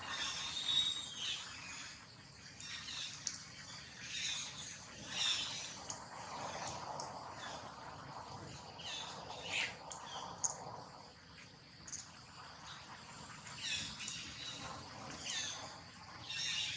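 Outdoor ambience: scattered short, high chirping calls over a steady thin insect drone.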